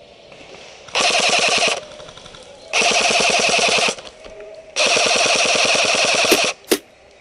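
Airsoft rifle firing on full auto in three bursts of rapid, evenly spaced shots, each about one to two seconds long, the last the longest.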